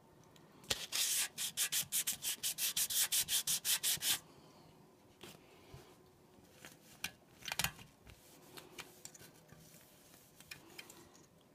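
Hand wet-sanding of an aluminum model-train passenger car body with 800-grit wet/dry sandpaper: quick back-and-forth rubbing strokes, about five a second, for about three seconds, then stopping. After that come only faint handling clicks and a soft knock.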